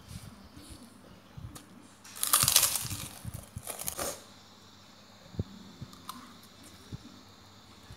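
Close-up eating sounds: a few loud crunching bites and chewing of a crisp snack, bunched between about two and four seconds in, then quieter chewing with a single click.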